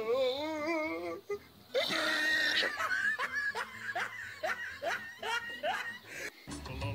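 Laughter: a wavering drawn-out laugh at first, then, after a short pause, a run of short falling 'ha' bursts, about three a second, that stops near the end.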